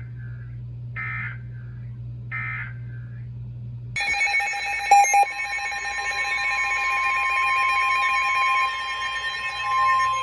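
Three short screeching data bursts of the Emergency Alert System's SAME digital code, the end-of-message signal of a NOAA Weather Radio warning. About four seconds in, a dense mix of electronic alarm tones starts abruptly, and from about five and a half seconds a steady weather radio alert tone of about 1050 Hz holds, announcing the next warning.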